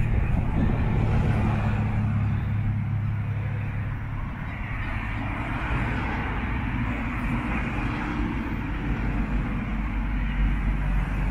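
A motor engine running steadily with a low hum.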